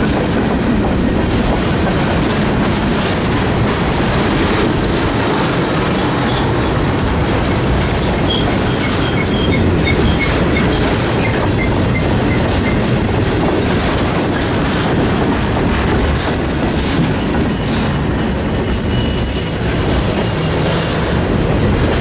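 Freight cars of a mixed freight train rolling past close by: a steady rumble and clatter of steel wheels on the rails, with a faint high-pitched wheel squeal in the middle of the passage.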